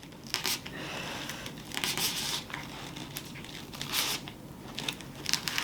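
Artificial Christmas wreath being handled during a glue-gun repair: irregular rustling and crinkling in short bursts, a few of them sharper scrapes.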